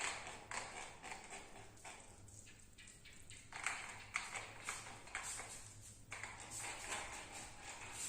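A barber's hands striking and rubbing a client's skin during a massage: a patter of short slaps and taps, a few a second, with a thinner stretch about two seconds in.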